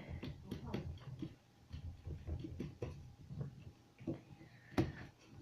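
Scattered small taps and clicks of hands working Play-Doh on a table, with one sharper knock a little before the end.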